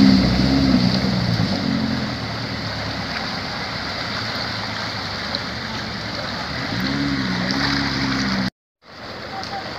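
Passenger van's engine running under load as it drives through a fast-flowing floodwater stream, over the steady rush of the water. The engine note fades, then rises again about seven seconds in as the van climbs the far bank; the sound cuts out for a moment near the end, leaving only the rushing water.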